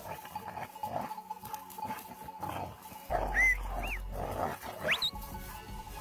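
Dog growling and snarling in rough bursts, with a few short bird chirps in the second half and a rising whistle near the end.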